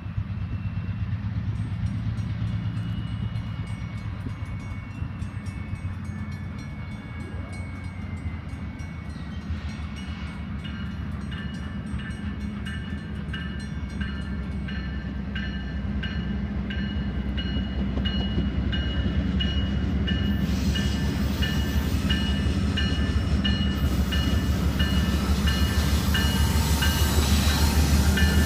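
Diesel work train running, its low engine drone growing louder as it approaches. From about ten seconds in, a bell rings steadily in an even repeating rhythm.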